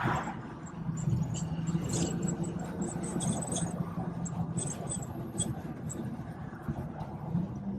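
BMW 440i's B58 turbocharged inline-six running under way at highway speed, heard from inside the cabin over road and tyre rumble; a steady engine note that steps up in pitch near the end. Faint high chirps come and go over it.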